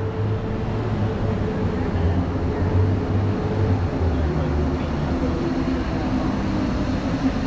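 A motor vehicle's engine running close by, a steady low hum over street noise.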